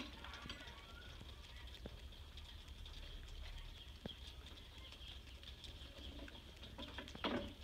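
Quiet outdoor background with a faint steady high hiss and a few small scattered taps, then a brief louder sound just before the end.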